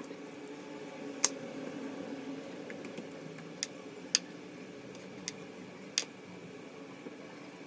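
Five sharp clicks and taps of kitchenware being handled and set down, the loudest about a second in and near the middle, over a low steady hum.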